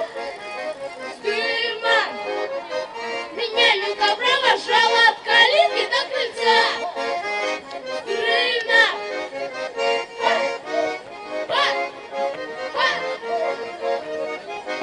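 Accordion playing a lively traditional folk tune.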